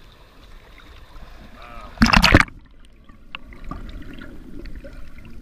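A loud splash about two seconds in as the camera is dunked into the sea, after which the sound turns muffled and underwater: a low rumble with scattered clicks. Faint voices are heard before the plunge.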